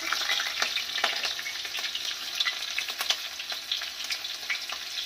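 Oil sizzling in a kadhai as cumin seeds, whole garlic cloves and chopped green chillies fry, with scattered crackles and a metal spatula scraping and stirring against the pan.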